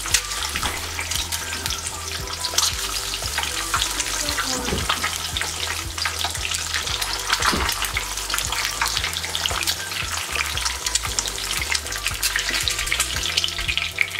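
An egg frying in hot oil in a nonstick skillet: a steady sizzle full of small crackling pops of spitting oil.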